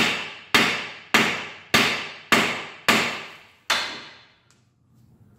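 Hammer blows on a steel steering knuckle to knock a tapered tie rod end loose on a Ford Excursion's front axle. There are about seven sharp, ringing strikes at a steady pace of roughly two a second, and they stop about four seconds in.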